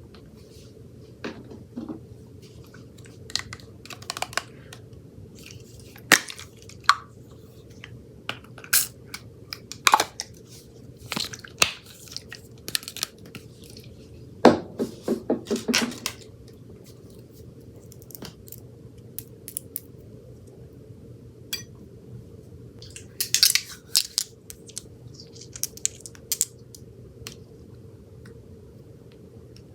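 Slime being squished and worked by hand: irregular sticky clicks and crackles, with a quick run of wet pops about halfway through, over a steady low hum.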